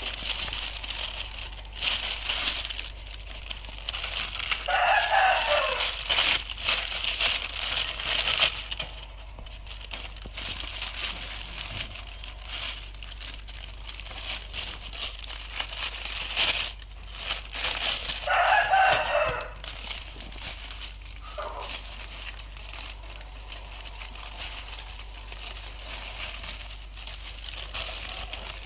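A rooster crowing twice, each crow about a second long, with a shorter call soon after the second. Under it runs an uneven rustling and crinkling with scattered clicks, from fibreglass wool being handled and wrapped around an exhaust muffler tube.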